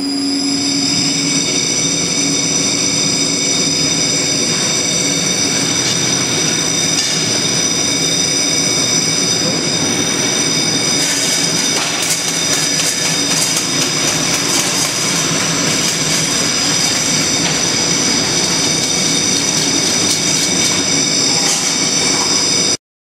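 MEM AFB 99 automatic can flanger/beader combination machine and its can conveyor running, a continuous metallic clatter of tinplate cans under a steady high-pitched whine. From about eleven seconds in, sharp clicking and clattering of the cans gets busier.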